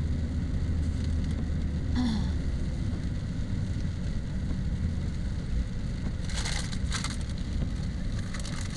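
A car driving on wet roads, heard from inside the cabin: a steady low road rumble, with crackling tyre hiss from the wet surface about six seconds in and again near the end.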